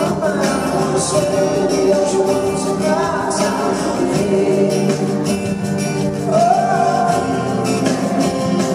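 Live rock band playing a song with a sung lead vocal over guitar and band accompaniment, at a sound check.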